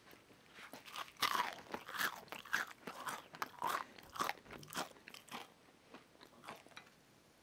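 Close-up crunching of crisp-crusted cornbread sticks being bitten and chewed, about two crunches a second, tapering off near the end.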